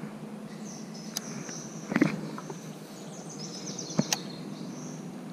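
Handling of a baitcasting rod and reel during a retrieve: a thump about two seconds in and two sharp clicks near the end, over outdoor ambience with faint high chirping.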